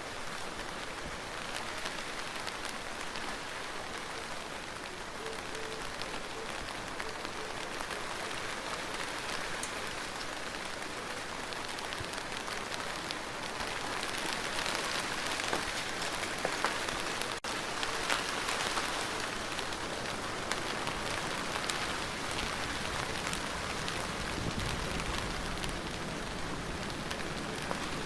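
Steady rain with no thunder: an even hiss of rainfall with many individual drops clicking through it. It grows a little heavier about halfway through.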